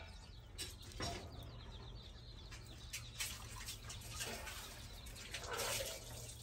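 Small limes squeezed by hand over a bowl of chopped onion, chilli and coriander: faint wet squelches and drips of juice with scattered soft clicks of handling, and a louder brief rustle near the end.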